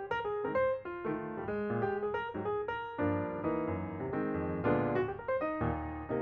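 Background piano music: a flowing run of notes and chords.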